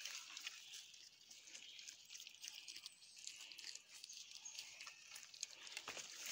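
Faint rustling and light footfalls through leafy undergrowth and dry leaf litter, as a dog and a walker move through the plants. A steady high hiss of summer insects runs underneath.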